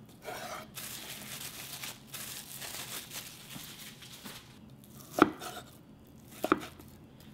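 Kitchen knife slicing raw beef fillet on a wooden cutting board: a soft, even scraping of the blade through the meat, then near the end two sharp knocks of the knife on the board a little over a second apart.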